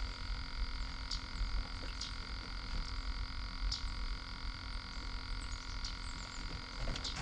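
Frogs calling in a steady chorus, with short high chirps about every second or two, over a low steady rumble.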